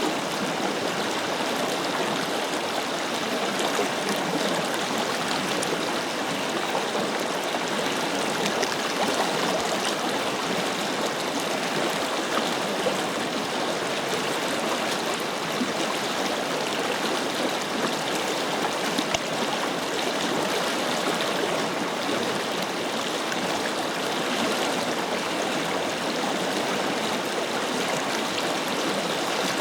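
Forest river flowing over stones: a steady, even rush of running water with small splashes and gurgles.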